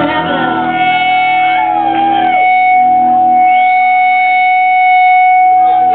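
Live rock band playing the opening of a song: one long held note runs throughout, with wavering, gliding notes over it.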